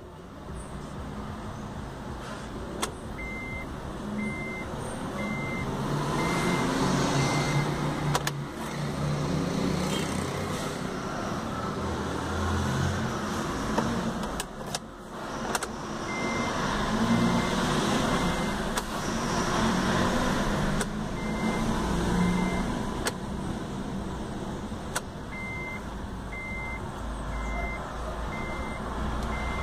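A motor vehicle engine running with a rumble that rises and falls, overlaid by groups of short, evenly spaced high beeps about once a second.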